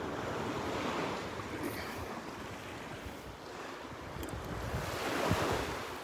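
Gulf of Mexico surf washing onto the beach, swelling about a second in and again more strongly near the end, with wind rumbling on the microphone.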